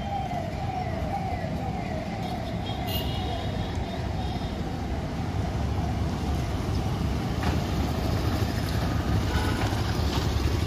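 A siren-like rising tone repeating about twice a second, fading out after about three seconds. Under it is a steady low traffic and engine rumble that grows louder toward the end as a motorcycle rides up with its engine running.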